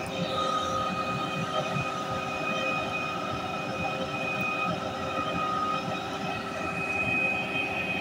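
Truck-mounted concrete boom pump running: a steady mechanical drone with a high whine over it that fades in and out.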